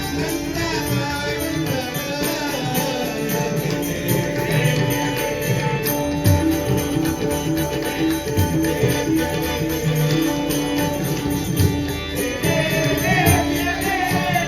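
Konkani devotional bhajan: singing voices over instrumental accompaniment, with steady held notes and drum strokes.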